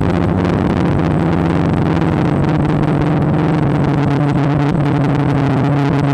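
DJI Phantom quadcopter's motors and propellers running steadily in flight, heard from the on-board camera as a loud, even hum of several close tones.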